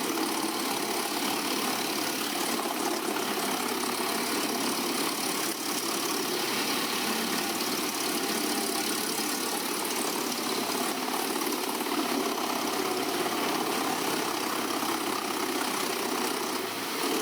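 Large diesel-powered wood trunk crusher running steadily, its engine and machinery making an even, unbroken noise with no distinct knocks or changes.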